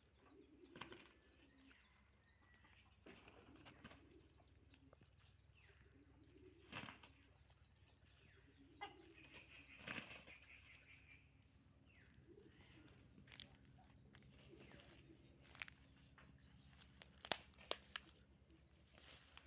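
Fighting roosters' wings flapping in short, scattered flurries, with sharp knocks between them and a brief bird call about ten seconds in.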